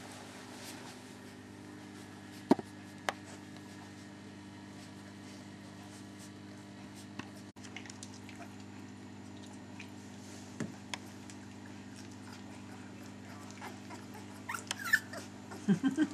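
Three-week-old Dalmatian puppies playing, giving a cluster of short cries near the end. A couple of sharp knocks come about two and a half and three seconds in, over a steady low hum.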